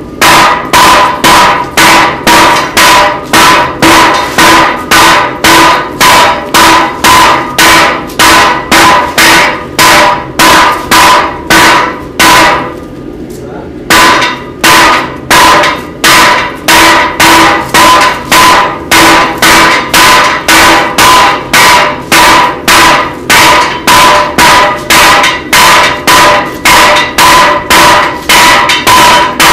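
Three smiths striking hot steel on an anvil in turn, a steady run of hammer blows at about two and a half a second, each with a ringing anvil tone. The blows break off for about two seconds roughly halfway through, then carry on at the same pace.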